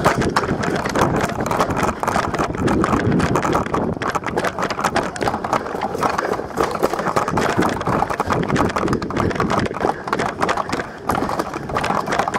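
Rapid, uneven footsteps with rustling and clatter, as of a person running over rough ground.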